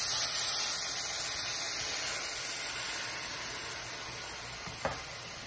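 Chicken broth hitting a hot cast-iron skillet, hissing and sizzling loudly as it turns to steam, then slowly dying down: deglazing the browned bits from the seared chicken.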